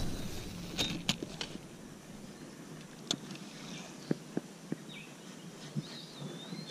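Faint tackle noises from a spinning rod and reel being cast and worked: a few sharp clicks in the first second and a half, another at about three seconds, then scattered small knocks. Near the end a bird gives a short whistle that wavers up and down.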